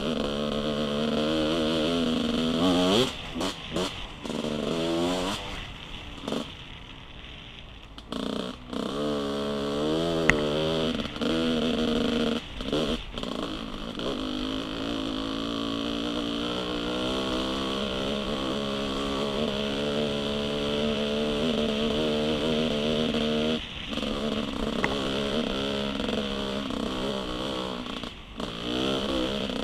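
Dirt bike engine under way on a trail, revving up and down as the throttle is worked, easing off for a couple of seconds about six seconds in. There is a sharp knock near the middle.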